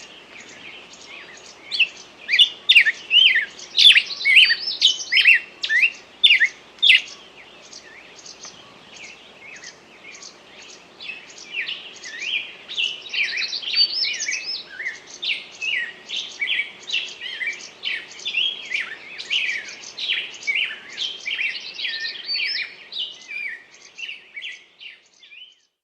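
Songbirds chirping and singing in a forest over a faint steady background hiss. The song thins out for a few seconds after the opening run, then returns as a dense stream of quick chirps, and the sound cuts off just before the end.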